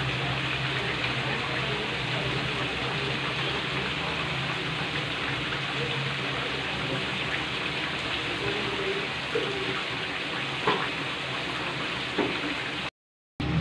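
Chicken simmering in spiced liquid in a wok: a steady bubbling hiss, with a couple of faint clicks near the end. The sound cuts out for about half a second just before the end.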